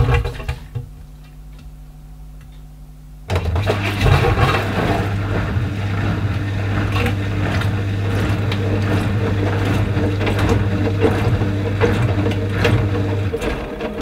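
AEG 8000 Series Lavamat front-loading washing machine mid-cycle. After a few knocks, its drum motor starts up about three seconds in and runs with a steady hum while the damp laundry tumbles in the drum. The low hum drops out near the end.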